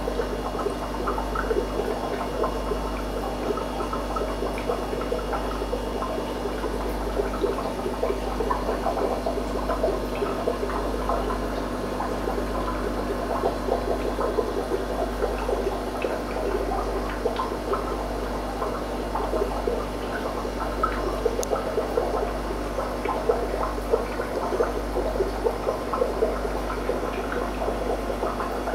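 Aquarium water bubbling and trickling steadily over a constant low hum, the sound of the tank's equipment running.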